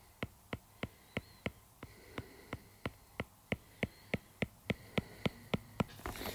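Stylus tip tapping on an iPad's glass screen, about three light, evenly spaced taps a second, as short fur strokes are painted.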